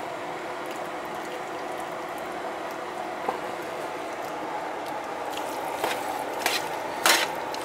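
A plastic slotted spatula working through roasted meat and vegetables in an enamelware roasting pan, giving a few short clicks and scrapes against the pan that come more often near the end, over a steady hum.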